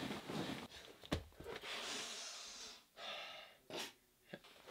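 A person breathing hard: two long, noisy breaths with short sharp sniffs or clicks between them.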